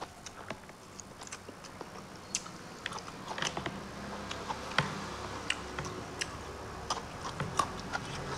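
A person chewing food close to a clip-on microphone: irregular sharp mouth clicks and smacks, a few a second.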